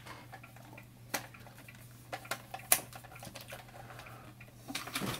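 A few scattered light clicks and taps on a soldering workbench, over a faint steady low hum. The sharpest tick comes nearly three seconds in, and a small cluster of taps follows near the end.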